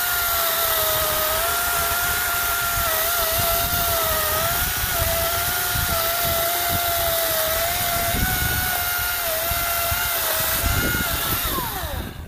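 EGO 56-volt brushless 14-inch battery chainsaw cutting through a log, its motor whine holding a steady pitch that wavers slightly under load. Near the end the cut finishes and the motor winds down with a falling whine and stops.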